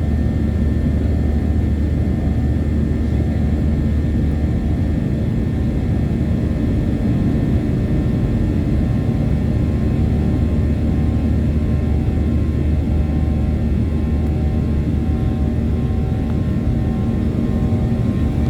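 A Boeing 737-700's CFM56-7B jet engines running under steady power, heard from inside the passenger cabin as a loud, even rumble with a steady hum over it.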